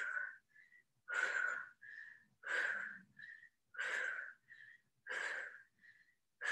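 A woman breathing hard in rhythm with push-ups: each cycle is a longer breath followed by a short, higher one, repeating about every 1.3 seconds, five times.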